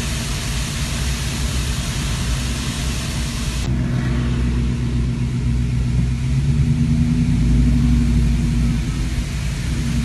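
Rush of a waterfall mixed with road traffic, with car engines humming steadily underneath. A little over a third of the way in, the sound changes abruptly to a duller mix where the engine hum is stronger, and the hum swells briefly past the middle.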